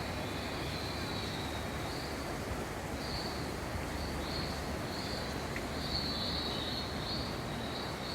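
Indoor rainforest ambience: a series of short, high chirping calls, one about every half second to a second, with a longer run of calls about six seconds in, over a steady low background noise.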